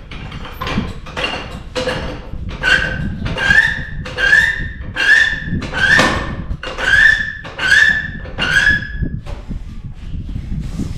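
Hand trigger spray bottle squeezed over and over at a steady pace, about a dozen sprays, each a hiss with a short squeak, as a flat ATV tire is sprayed down to hunt for its leak.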